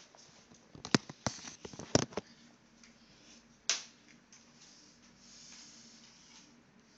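Handling noise: a quick run of sharp clicks and knocks as the camera is set down, then a single knock a couple of seconds later, over faint room noise.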